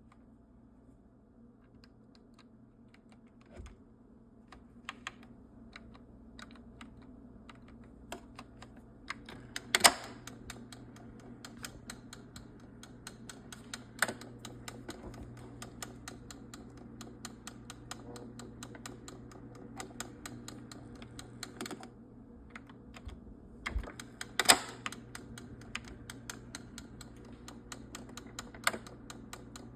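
Irregular clicks and knocks from a Cuisinart Burr Grind & Brew coffee maker being handled, with two louder knocks about ten seconds in and near twenty-five seconds. A faint steady low hum runs under them from about ten seconds in.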